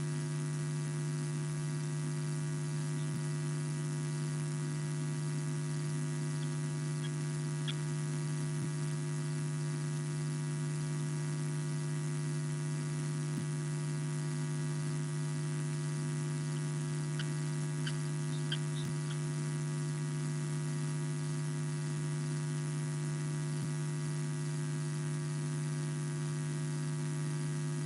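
Steady electrical hum with a constant hiss from the wildlife camera's faulty audio feed. A few faint, brief high chirps come through about eight seconds in and again around eighteen seconds.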